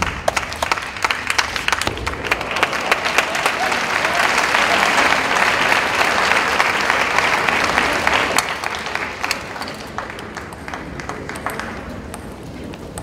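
Arena crowd applauding after a game-winning point in a table tennis match. The clapping swells to a peak around the middle and dies down from about eight seconds in.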